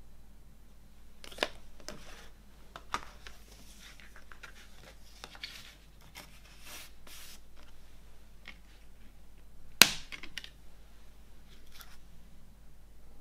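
A CD digipak and its booklet being handled: card and paper sliding and rustling, with a few sharp plastic clicks. The loudest click comes about ten seconds in.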